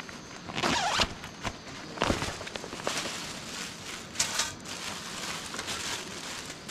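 A carry bag's zipper being opened, then clear plastic wrapping rustling and crinkling in irregular bursts as a folding metal fire pit is unpacked from it.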